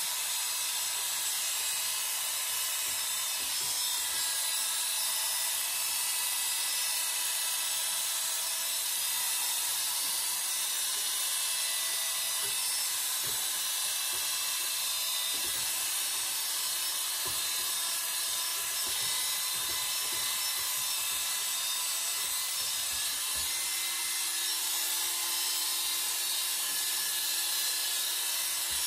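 Corded electric hair clippers running steadily as they are pushed over the scalp, cutting through about four weeks of hair growth; an even, high-pitched buzz with a few soft knocks.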